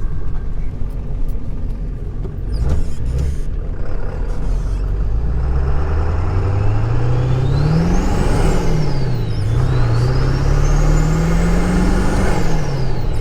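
Ford 7.3L Power Stroke V8 turbo-diesel pulling hard under acceleration, with a high turbo whistle. The engine note and the whistle rise together, fall at a gear change about eight seconds in, then climb again and fall at a second shift near the end.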